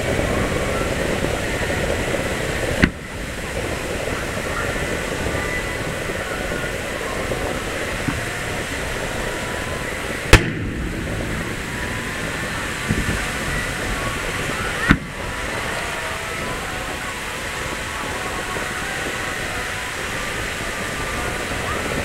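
Aerial firework shells bursting: sharp booms about three, ten and fifteen seconds in, the one at ten the loudest, and another right at the end, over a steady murmur of a crowd.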